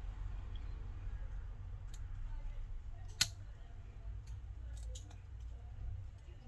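Small ticks and one sharp click, about three seconds in, of a metal tool picking shattered glass out of an iPhone's rear camera lens ring, over a low steady hum.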